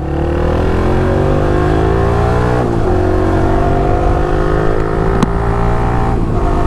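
Yamaha R15 V3's single-cylinder engine pulling away under acceleration, its note rising, with an upshift about two and a half seconds in and another near the end.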